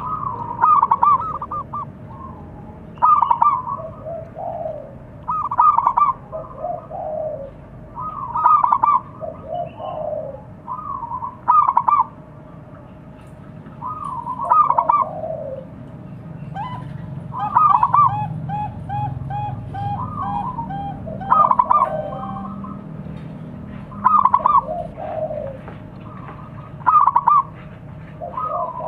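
Zebra dove (perkutut) cooing. A short phrase of quick rolling notes comes about every three seconds, with softer falling coos between the phrases. A run of rapid, evenly spaced notes comes about two-thirds of the way in.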